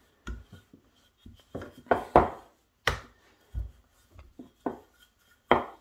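Wooden rolling pin rolling out a ball of milk-bread dough on a worktop: a string of irregular knocks and short rolling strokes, the loudest about two seconds in.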